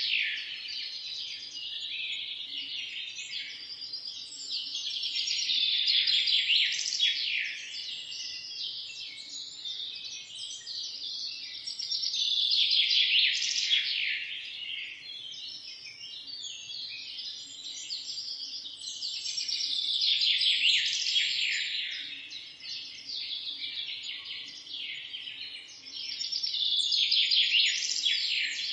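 Many small birds chirping and twittering at once in a dense chorus, swelling louder about every seven seconds.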